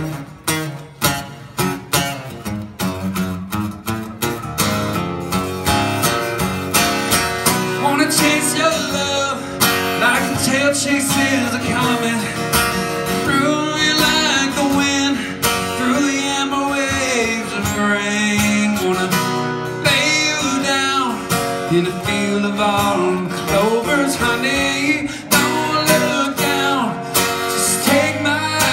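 Acoustic guitar strummed hard in quick strokes. From about five seconds in, a man's voice comes in over the guitar, singing long, bending notes without clear lyrics.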